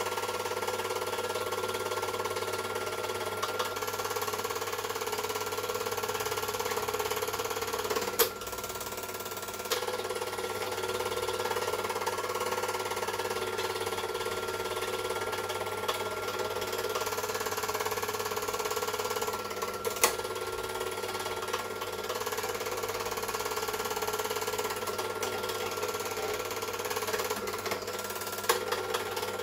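Super 8 film projector running: a steady mechanical whir and clatter with a constant hum. Two sharp clicks, about eight seconds and twenty seconds in.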